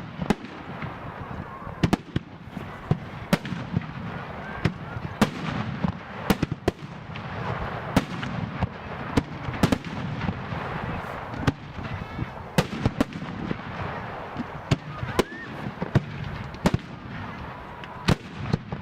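Aerial firework display shells bursting in rapid succession: a steady barrage of sharp bangs, roughly one or two a second, with a rumbling hiss between them.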